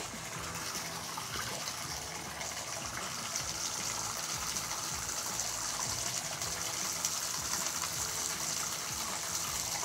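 Hot water running steadily from a tub spout, its stream splashing into a drinking glass held under it and into the tub below.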